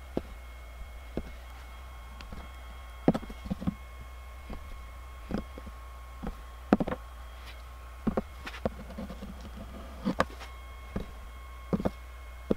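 Irregular short taps and knocks as a straight metal blade is pressed down through blue modelling clay onto a wooden board, trimming the clay. A steady low hum runs underneath.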